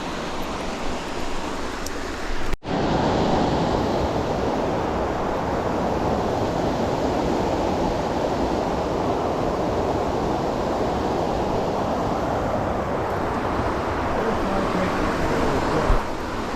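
Steady rush of a creek's fast-flowing water, cut off for an instant about two and a half seconds in and then going on a little louder.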